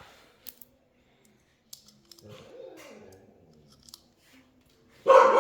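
A few light, sharp clicks, then a dog barks loudly once, about five seconds in.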